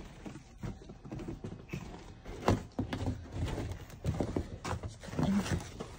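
Footsteps in boots crunching and thudding on a snow-covered wooden deck, irregular, with a sharper thump about two and a half seconds in.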